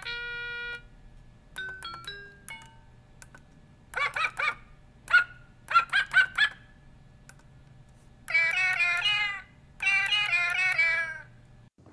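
AW-860 electronic piano kit sounding synthesized notes through its small built-in speaker as its keys are pressed: a few single beep-like notes, then quick groups of short tones with bending pitch, and two longer warbling runs of notes in the second half.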